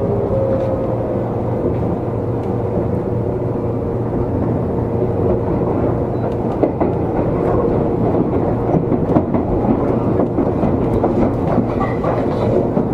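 Seibu 20000 series electric train running, heard from on board: a steady rumble of wheels on rail with scattered clicks over the rail joints. A faint motor whine glides down and fades about a second in.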